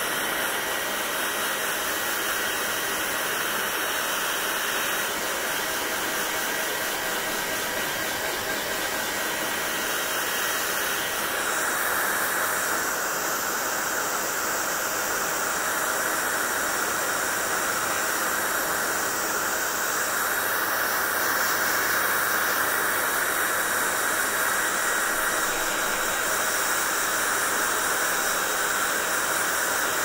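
Handheld hair dryer blowing steadily as it dries wet hair: a constant rush of air and motor noise, its tone shifting slightly about twelve seconds in.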